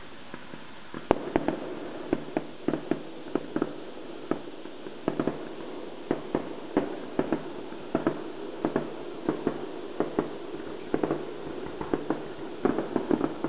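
Fireworks popping and banging in quick, irregular succession, about two or three reports a second, starting about a second in and growing denser near the end.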